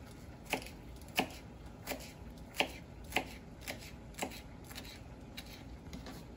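Kitchen knife chopping a pile of fresh cilantro on a plastic cutting board: a string of short, sharp taps of the blade on the board, a little under two a second.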